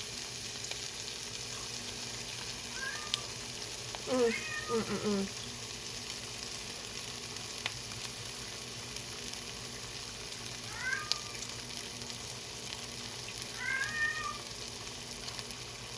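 Cheese and pickle chaffle sizzling steadily in a closed chaffle maker, with a cat meowing a few times over it.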